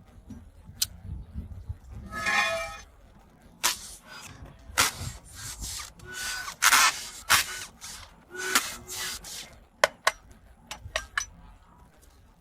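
Hand repair work on metal parts: a string of sharp knocks and clinks with scraping and rubbing in between, and a brief squeal about two seconds in.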